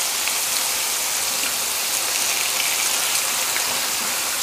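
Meat frying in fat on an electric flat-top griddle (bacon, chicken thighs under a press, burger patties): a steady, even sizzle with a few faint pops.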